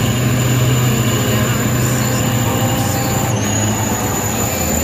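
Diesel engines of light 4x4 dump trucks running under load as they crawl through deep red mud, a loud, steady low drone.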